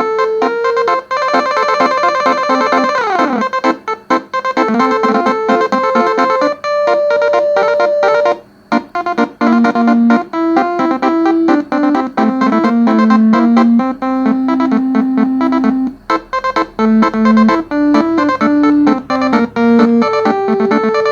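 A 12-trumpet telolet basuri bus horn set playing a tune from a MIDI file: quick runs of clear, steady-pitched notes, often several at once, with a short break about halfway through.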